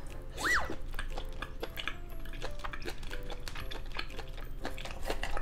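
Close-miked chewing of grilled pork intestines (makchang), a run of small wet mouth clicks and smacks, with a brief squeak that rises and falls about half a second in. Faint background music underneath.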